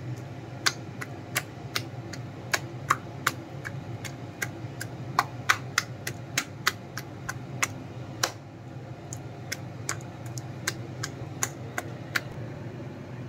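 A hand beating thick bonda batter in a plastic bowl just after soda is added, making sharp wet slaps and clicks at an irregular pace of about two a second, over a low steady hum.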